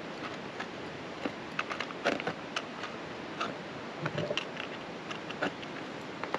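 Steel ice-tool picks and crampon front points tapping and scraping on rock: irregular sharp clicks and short scratches, over a steady hiss.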